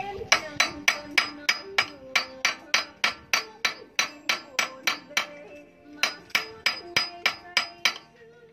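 Hand hammer striking steel parts on the open gearbox of a công nông farm tractor: an even run of sharp metal blows, about three a second, that stops near the end.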